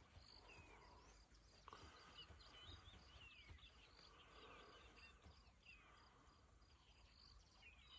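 Faint wild birdsong, many short chirping calls throughout, over a quiet natural background with a thin, steady high insect buzz.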